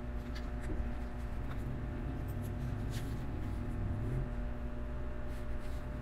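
Plastic LEGO pieces being handled and pressed together, a few faint scattered clicks, over a steady low background hum.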